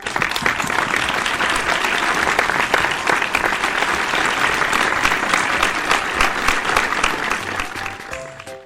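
Applause: a dense patter of clapping that starts suddenly and dies away near the end, with background music coming back in.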